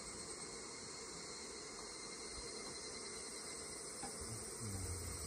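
A steady, unbroken chorus of summer insects.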